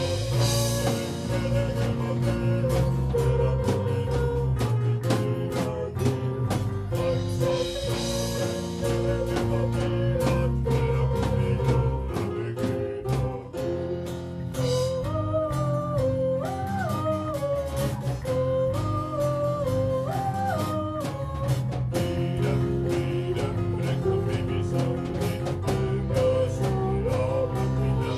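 A live folk band playing: strummed acoustic guitar over drums and cymbals, with singing.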